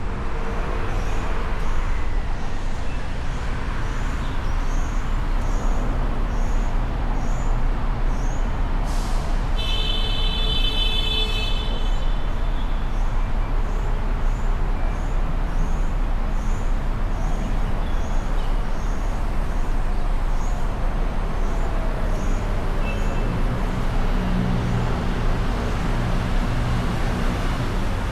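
Steady city traffic: engines and tyres running. About nine seconds in there is a short hiss, followed by a horn sounding for about two seconds. A deeper engine note comes up near the end.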